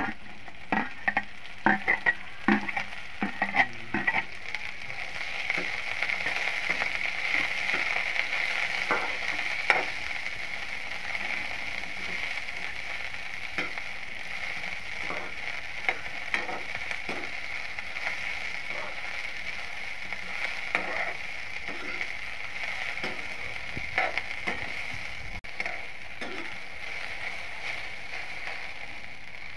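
Chopped okra frying in a spoonful of hot oil in a kadhai: a clatter of pieces and spatula knocks as it goes into the pan in the first few seconds, then a steady sizzle with occasional spatula scrapes and knocks as it is stirred.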